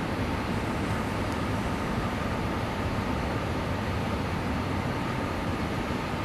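Steady outdoor background hum with a faint high whine in it, unchanging throughout.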